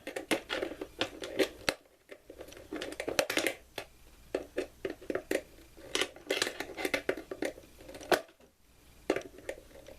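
Needle-nose pliers working small lock nuts tight on machine screws, a quick, irregular run of metal clicks and scrapes with a couple of brief pauses.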